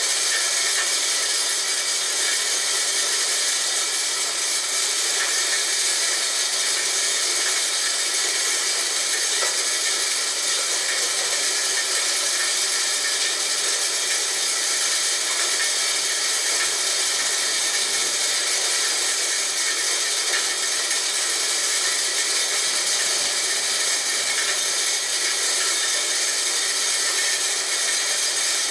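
Homemade electric corn grinder, built from a water pump motor, running steadily while grinding corn: an even, hissing grinding noise that does not change.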